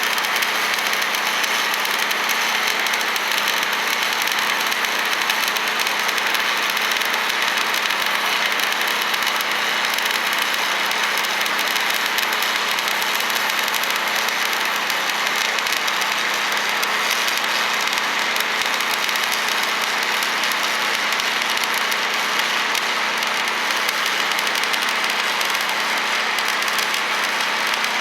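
Steady hiss and crackle of a stick-welding arc burning a 7018 rod on a vertical-up bead in half-inch steel plate, over a faint steady hum. The welder's amperage is set a little too cold.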